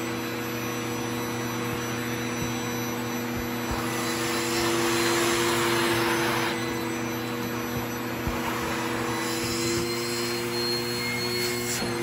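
Canister vacuum cleaner running on carpet: a steady motor hum and whine over the rush of air. The rush swells louder for a couple of seconds in the middle.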